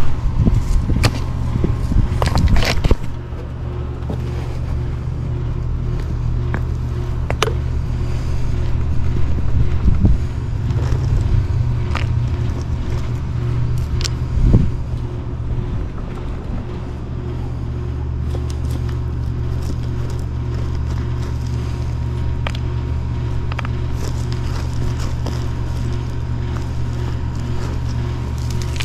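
A motor running steadily with a low drone, with scattered knocks and scrapes on top. The knocks come thickest in the first three seconds.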